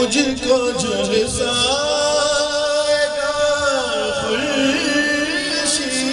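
A man singing a naat into a microphone, drawing out long, held notes that bend up and down in pitch.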